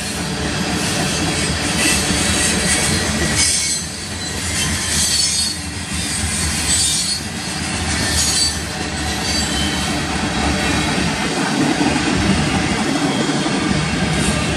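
Loaded freight cars (tank cars and covered hoppers) rolling past close by: a steady rumble of steel wheels on rail, with short high-pitched wheel screeches every second or two. The rumble grows heavier near the end as the hoppers go by.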